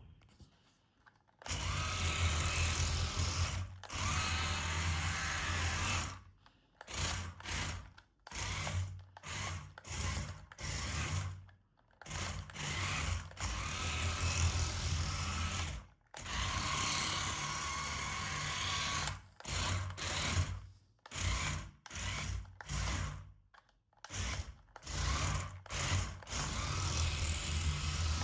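Small electric motor and plastic gearbox of a toy remote-control car whirring in stop-start bursts, some runs several seconds long and others brief, as it is driven back and forth.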